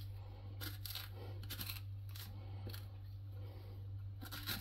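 Metal spoon scraping seeds and stringy pulp out of the cavity of a halved butternut squash: a series of short, soft scrapes at irregular intervals, over a steady low hum.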